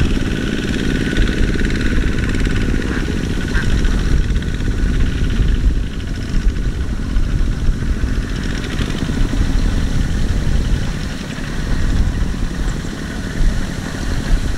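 Single-cylinder diesel engines of two-wheel walking tractors chugging steadily, working under load as they pull loaded trailers through deep mud.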